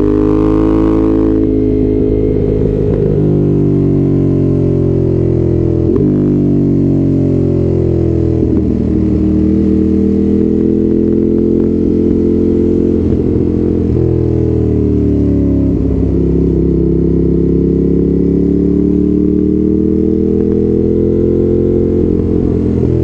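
Ducati Monster's V-twin engine on a ride, pulling up through the revs and dropping in pitch at several quick gear changes made with the quickshifter.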